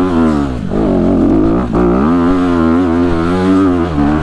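Dirt bike engine running under load up a hill, its pitch rising and falling again and again as the throttle is worked.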